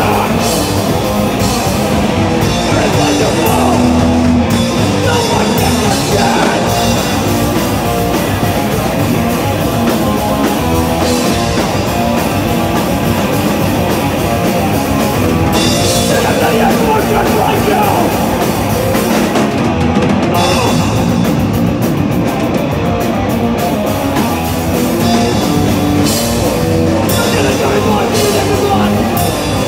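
Punk band playing live at full volume: distorted guitars, bass and drum kit, with the high cymbal wash thinning out for a few seconds about two-thirds of the way through.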